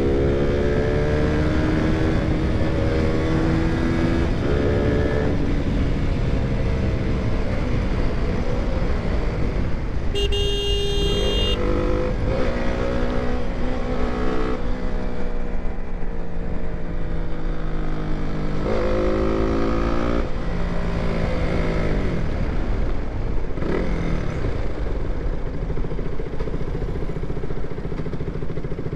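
Single-cylinder KTM motorcycle engine under way, its pitch rising and dropping again and again as it accelerates, backs off and shifts gears, over wind and road noise. About ten seconds in, a horn sounds for just over a second.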